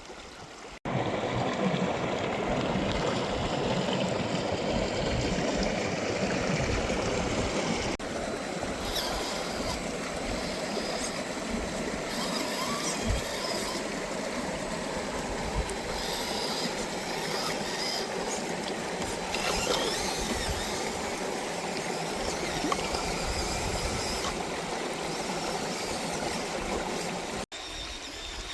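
Creek water running steadily. The sound cuts in about a second in and drops away near the end.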